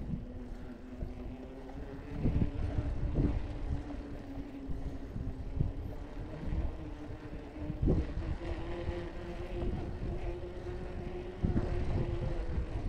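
Bicycle riding along a sealed path: a steady tyre hum that drifts a little in pitch with speed, under low rumbling wind buffeting on the microphone that gusts several times.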